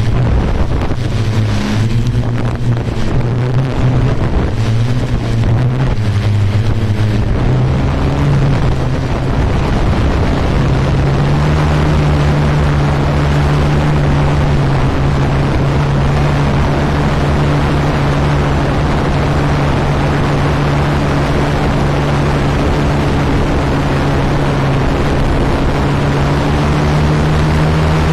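Quadcopter drone's motors and propellers humming steadily, with wind buffeting the microphone. The hum wavers through the first several seconds, then rises slightly in pitch about 11 seconds in and holds steady.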